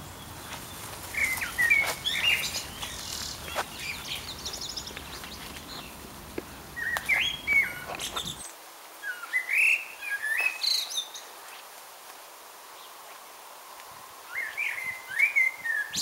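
A songbird singing short chirping phrases a few seconds apart, four in all. A low background rumble under the song cuts off abruptly about eight seconds in.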